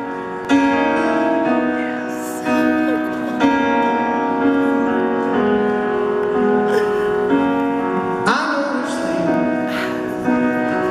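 Live band music led by a keyboard playing slow, held piano-like chords, as a ballad's intro. About eight seconds in the band gets louder and the audience cheers and whoops.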